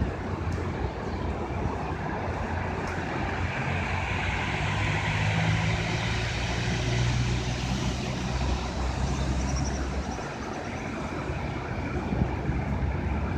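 Sea waves washing onto the shore in a continuous surf noise that swells in the middle, over a low rumble that drops away about ten seconds in.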